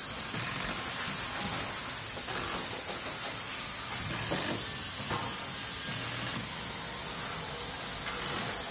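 Factory machinery ambience: a steady hiss of running machines, with a few faint knocks and clatters now and then.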